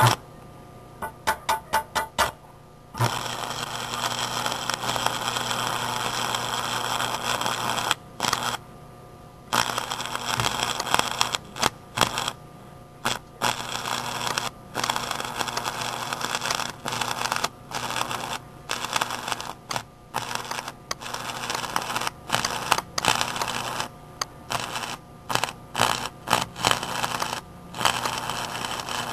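AC stick-welding arc from a homemade microwave-oven-transformer welder burning a 6013 rod into mild steel. A few short scratch strikes come first. From about three seconds in the arc runs as a steady crackling sizzle over a low buzz, breaking off for a moment and restriking several times, with two longer gaps.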